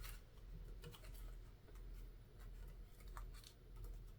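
Faint, scattered small clicks and taps from handling a 1961 Groma Kolibri N typewriter's ribbon and metal ribbon spools while the ribbon is threaded behind the guide teeth.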